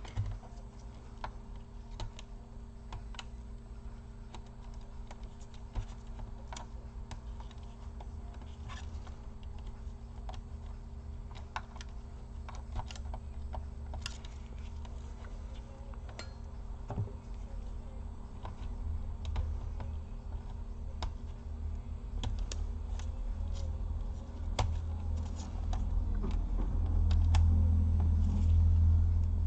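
Scattered light clicks and taps of small laptop parts being handled and fitted as a Wi-Fi card goes back into an Acer Aspire 5738. A low rumble builds near the end.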